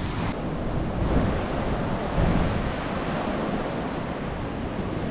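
Ocean surf breaking and washing up the beach as an even, continuous rush, with wind buffeting the microphone.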